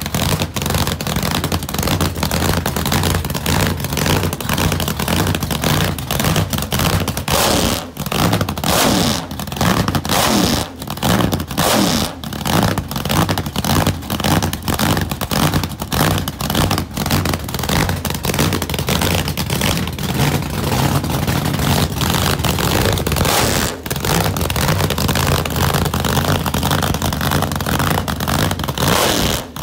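8-71 supercharged, fuel-injected 430 Buick V8 running on nitromethane, cackling at a fast idle with a loud, crackling exhaust, the throttle blipped a few times around a third of the way in and again near the end.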